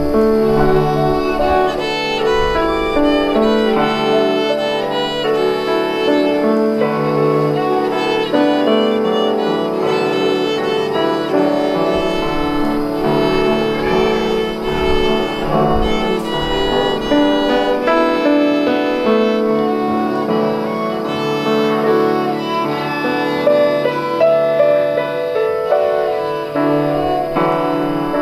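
Piano trio playing classical music: violin and cello bowing over a Yamaha grand piano, the violin carrying the melody.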